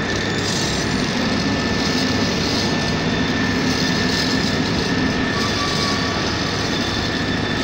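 Engines of heavy road-paving machinery running steadily, with a low rumble and a constant thin high whine.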